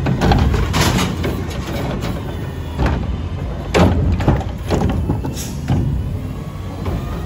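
Curotto Can arm on a front-load garbage truck dumping a wheeled trash cart and setting it back down: a series of sudden bangs and thuds from the cart and arm over the truck's running engine and hydraulics. Near the end the truck pulls away.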